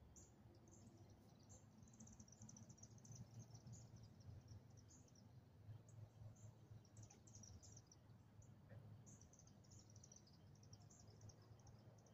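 Near silence: faint, high chirping in short, irregular clusters throughout, over a low steady hum of outdoor background noise.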